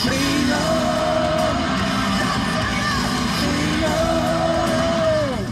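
Loud rock music with a singing voice holding long notes, the last one sliding down in pitch near the end.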